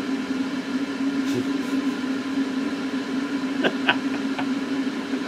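Electric centrifugal blower running steadily, a constant hum over a rush of air. A few short sharp clicks come about three and a half to four and a half seconds in.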